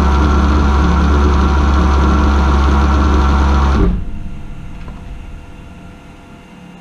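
Alternator converted to a brushless motor, run by a small 30 A drone ESC and driving a second alternator as a load, running with a loud steady deep hum and a whine above it. About four seconds in it cuts out abruptly and the rig spins down: the ESC shutting off at its 140-degree overheat cutoff.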